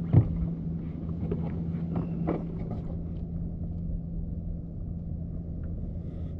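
Steady low hum of a boat engine idling, with one sharp thump just after the start and a few light clicks over the first couple of seconds.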